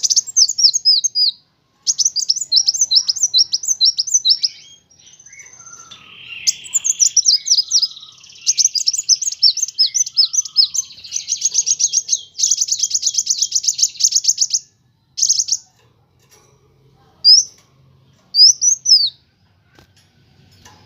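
Sunbird singing: quick runs of short, high chirps that slide downward, building into fast, dense trills in the middle, then breaking into sparse single chirps with pauses near the end.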